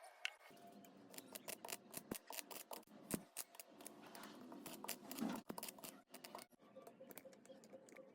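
Homemade transformer welder sparking: the electrode crackles and snaps in irregular sharp clicks as it touches the metal. The crackling is densest through most of the stretch and thins out near the end.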